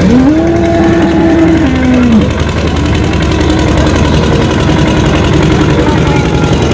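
An engine running steadily under the general din. Near the start, a long drawn-out call rises, holds, then drops and fades after about two seconds.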